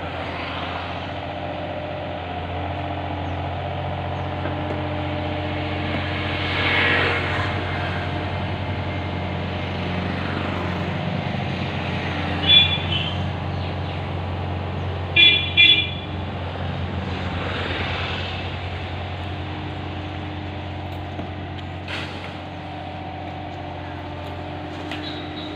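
A mini excavator's diesel engine running steadily under load. A vehicle horn toots once about twelve seconds in, then twice in quick succession a few seconds later.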